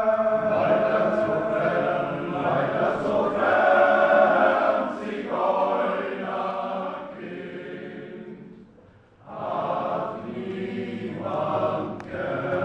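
Men's choir singing a German choral song in long sung phrases, with a short break about eight and a half seconds in before the next phrase begins.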